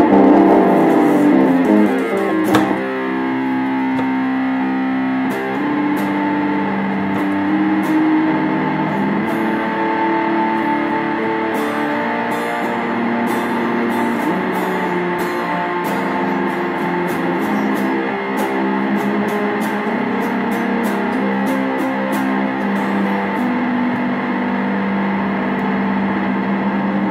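Electric guitar through effects and distortion, playing sustained droning notes that shift in pitch every second or two, with scattered faint clicks. The first few seconds are louder and denser, ending in a sharp strike.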